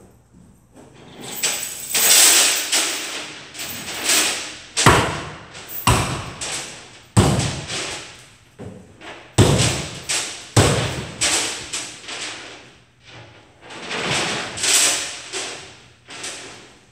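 Demolition of a wooden loft frame: a series of loud thuds and bangs, about a dozen, with a few longer crashing stretches between them, echoing in a large empty room.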